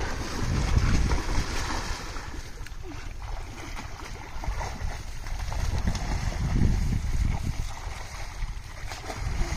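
Wind buffeting the microphone in an uneven low rumble, over the splashing of people swimming and wading in a pond.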